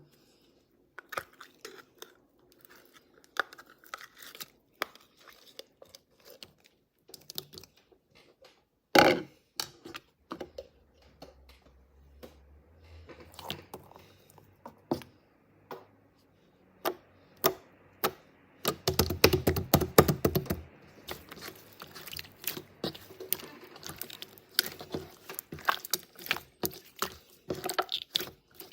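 Slime being squished, pressed and stretched by hand, giving irregular sticky clicks, pops and crackles, with a denser run of crackling about two-thirds of the way through.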